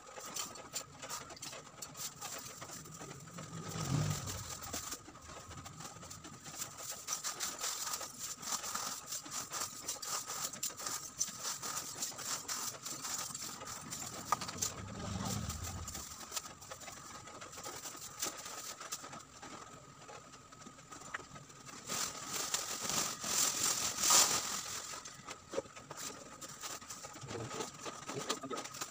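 Coconut-shell charcoal pieces clinking and rattling as they are scooped by hand into small plastic bags, with plastic bag rustling. A brief low rumble comes twice, around four and fifteen seconds in.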